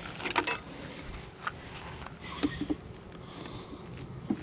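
Light clicks and knocks of beehive equipment being handled: a quick cluster of clicks just after the start, then a few single taps.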